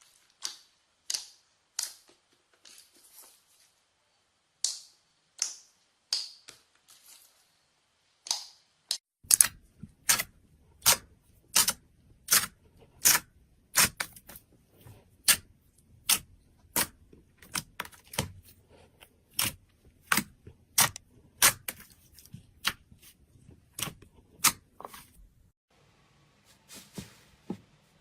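Slime being pressed and worked by hand. The first few seconds bring softer, sticky squelches, then from about nine seconds a regular run of sharp pops and clicks, one to two a second, as trapped air bursts.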